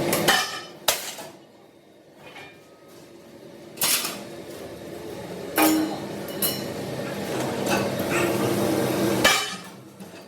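A hammer striking steel, about half a dozen sharp, irregularly spaced blows that ring briefly, over a steady workshop hum.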